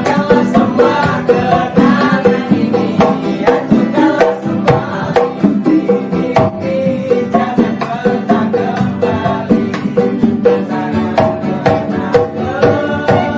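Lively music: a quick plucked-string melody over a steady percussion beat.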